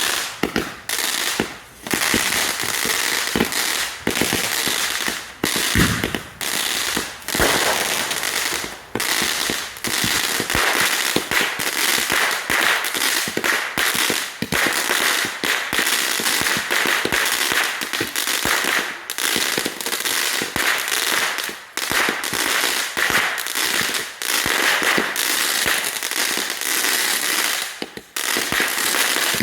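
Backyard consumer fireworks going off without a break: a dense, rapid crackling of many small bangs.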